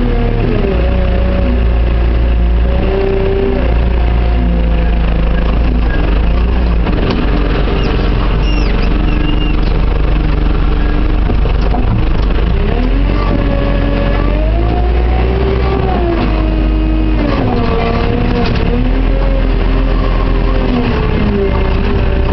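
JCB 532-120 telehandler's diesel engine running loudly, heard from inside its cab. Its revs rise and fall several times as the hydraulics work the boom while loading a dump truck.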